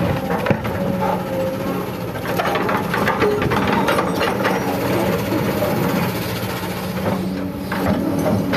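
Hydraulic excavator's diesel engine running under load, with a steady hydraulic whine, as the bucket digs into rocky soil. Stones and dirt clatter and scrape against the steel bucket, most thickly from about two to four seconds in as the load is dumped.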